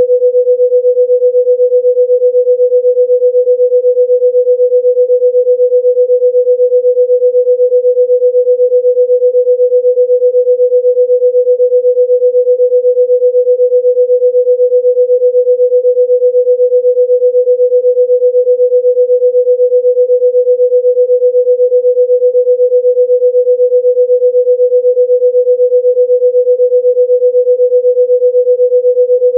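A single pure electronic tone at about 500 Hz, a sound-healing frequency tone, held unchanged with a fast, even pulse in its loudness.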